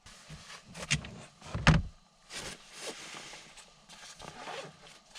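Clothing rustling and handling knocks, with one heavier thump a little under two seconds in, as someone pulls off boots and socks inside a car.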